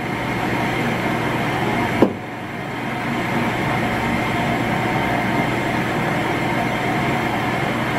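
Connecting-rod honing machine running with a steady hum, with one sharp knock about two seconds in.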